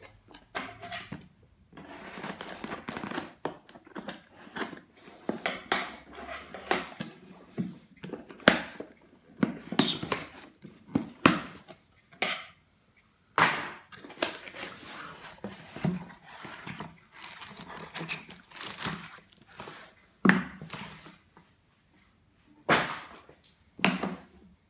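A cardboard shipping box being cut open and unpacked: scissors slitting packing tape, with cardboard flaps and packaging rustling and scraping in irregular bursts. Several sharp knocks come as boxes are handled and set down on a wooden table, the loudest in the second half.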